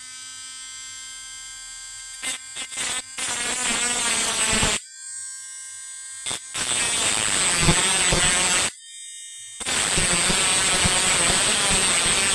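Dremel rotary tool running at high speed with a steady whine, then cutting into a stripped screw in three grinding passes of two to three seconds each. The bit touches the metal briefly a few times first, and the motor spins free or stops between passes.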